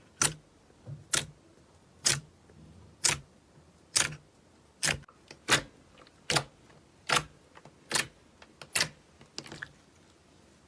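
Slime being pressed and worked by hand, giving sharp popping clicks about once a second, a dozen or so in a row, the last one fainter.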